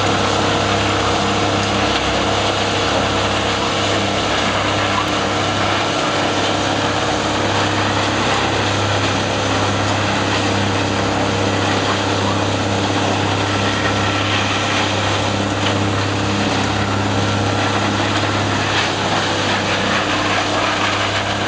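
Toro ProGrind 2000 tub grinder running under load: a steady low diesel drone beneath the constant noise of the tub grinding wood waste.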